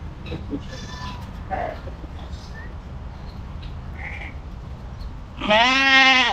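A goat bleats once, loudly, near the end, a call of just under a second that wavers in pitch.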